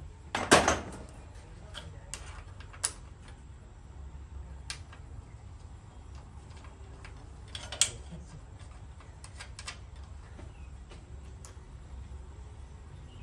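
Scattered metal clicks and knocks of hand tools and parts at a miter saw's blade arbor. The loudest is a knock about half a second in, with a sharper click near eight seconds.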